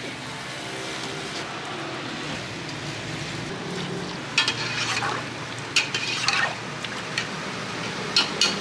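Metal kitchenware clinking sharply against an aluminium pressure cooker several times in the second half, over a steady background rumble.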